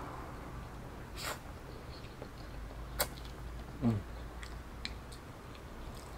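Close-miked eating: chewing, with a few sharp clicks of the fork on the plate and a short slurp of noodles about four seconds in.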